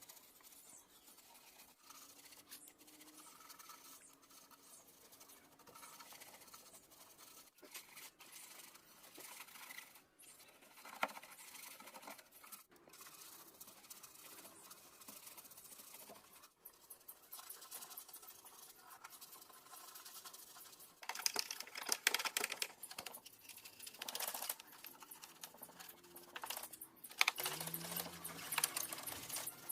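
Small clicks, taps and scratchy rubbing from parts of a cassette player being handled and worked on by hand, with louder bouts of scratchy rubbing about two-thirds of the way in and again near the end.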